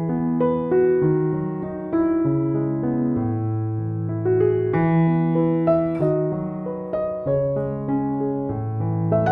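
Background piano music: a soft, continuous run of notes with a steady bass line.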